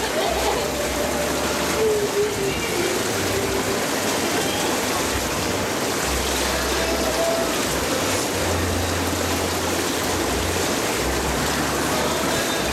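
Hot tub jets churning the water, a steady rush of bubbling water.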